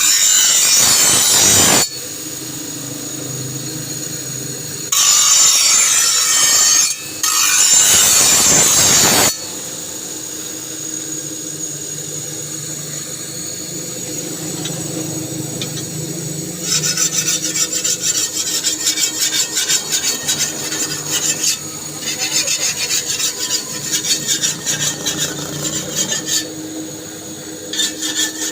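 Steel being filed or rasped by hand on a toka fodder-cutter blade. Three loud, continuous stretches of scraping come in the first third, each a couple of seconds long. From about two-thirds of the way in, quick repeated file strokes follow at roughly four to five a second.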